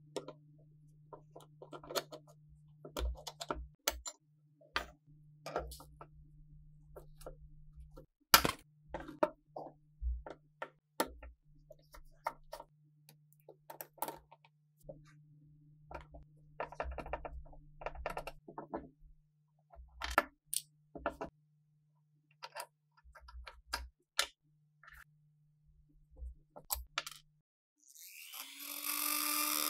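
Small metal parts being handled and worked on a bench: scattered clicks and taps, some sharper knocks, then a short, louder noisy sound near the end.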